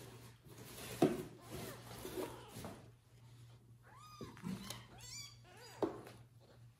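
A kitten mewing: several short, high mews that rise and fall, bunched in the second half, with a couple of sharp knocks, one about a second in.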